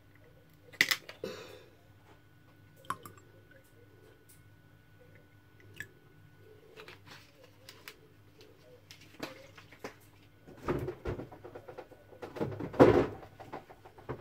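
The screw cap of a plastic cranberry-juice bottle is cracked open with a sharp click, then the juice is poured into a glass jug. A louder stretch of handling noise and knocks comes near the end.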